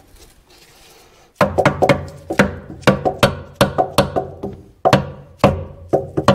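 Steel hammer striking a rusted lever on a Caterpillar D4's steering clutch control linkage, about two to three ringing metal blows a second, starting about a second and a half in. The blows are knocking the rust-stuck lever loose to work it off its shaft.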